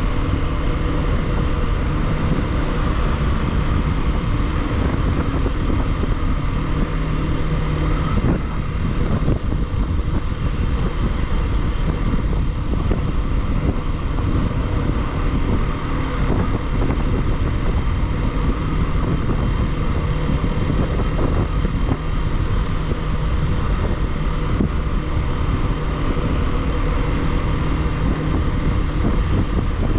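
Single-cylinder Bajaj Pulsar motorcycle engine running steadily while riding, with wind rushing over the microphone; the engine note shifts slightly about eight seconds in.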